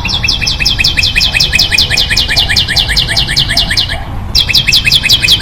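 A bird calling in a fast, steady run of high chirps, each sliding down in pitch. The run pauses briefly about four seconds in, then starts again.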